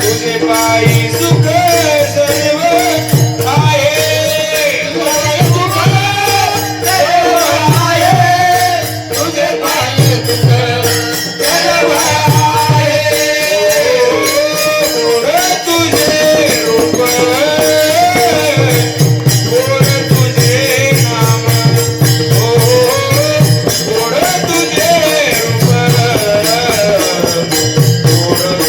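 Varkari devotional singing of a traditional chal: a man sings a melodic line over a steady drone, accompanied by rhythmic mridang (pakhawaj) drumming and small hand cymbals struck in time.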